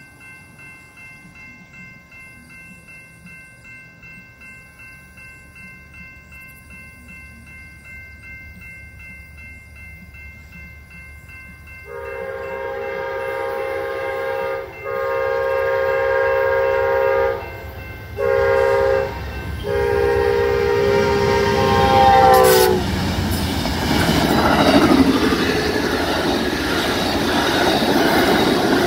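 Railroad crossing warning bell ringing steadily and faintly while a train approaches. Then an Amtrak diesel locomotive's air horn sounds the long-long-short-long grade-crossing signal, the last blast dipping in pitch as it passes. The three locomotives and passenger cars of the California Zephyr follow, rushing past at speed with a loud roar and clickety-clack of the wheels.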